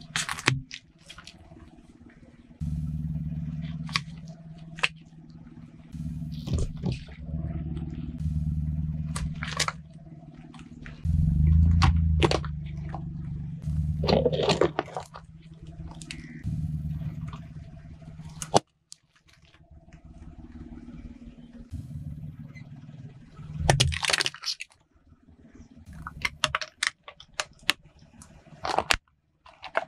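Car tyre rolling slowly over small plastic bottles, a paper bucket and plastic toys, crushing them: a string of sharp cracks, pops and crunches over the low hum of the car's engine. The hum starts and stops abruptly several times.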